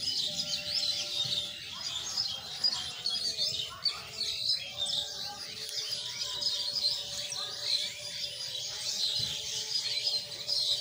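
A dense chorus of many small songbirds chirping and twittering without a break, the quick high notes overlapping one another.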